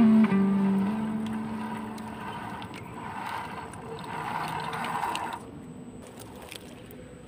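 A held guitar note fades out in the first second. Then a 1/10-scale RGT EX86100 RC crawler's 550 brushed motor and geartrain whine as it drives through shallow water and grass, swelling as it comes closer, until the sound drops away suddenly about five seconds in.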